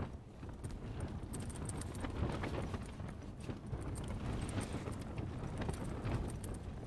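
Tent fabric flapping and rattling in strong wind, with irregular sharp snaps over a steady low wind rumble.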